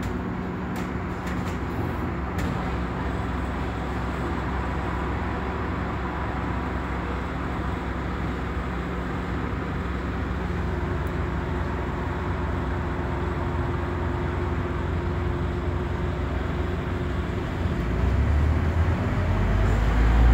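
Scania Omnidekka double-decker bus's diesel engine running with a steady hum, heard from the upper deck. Near the end it grows louder with a deeper rumble as the bus accelerates away.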